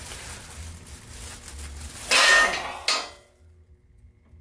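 Loaded steel jack stand letting go under the press: a loud metallic clank with a brief ringing about two seconds in as the ratchet bar releases, then a second short clank.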